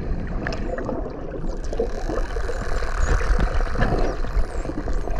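Underwater sound from a camera in the sea: a steady low water rumble with scattered sharp clicks, with bottlenose dolphins swimming close by.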